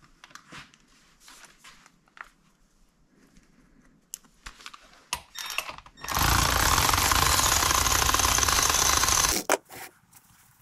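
Light clicks and knocks of metal parts being handled, then a loud steady noise from a workshop tool that starts abruptly about six seconds in, runs for about three seconds and cuts off suddenly.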